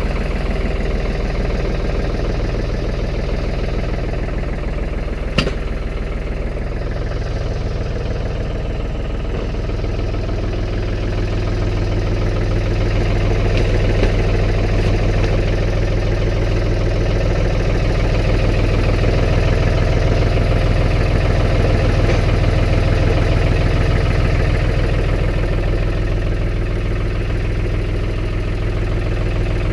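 Engine of a snow-plowing vehicle running steadily, with a single sharp click about five seconds in; the deep hum grows stronger about ten seconds in.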